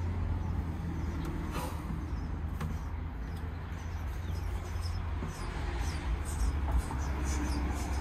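Steady low outdoor rumble, with faint scattered clicks and rustles over it.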